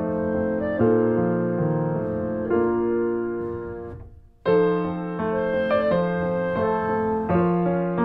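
Background piano music playing chords of held notes. It fades out about halfway, goes briefly almost silent, then starts again abruptly.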